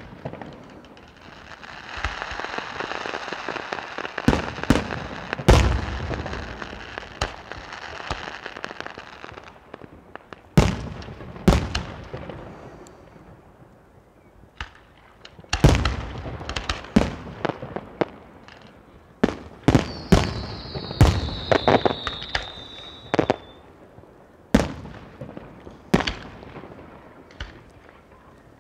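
Fireworks display: aerial shells bursting in a string of sharp bangs, some in quick clusters. A steady hiss runs through the first several seconds, and a high whistle falls in pitch about two-thirds of the way through.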